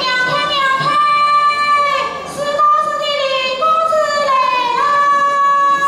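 A high female voice singing Yue opera (Shaoxing opera) in a long melodic line of held notes with slow glides between them.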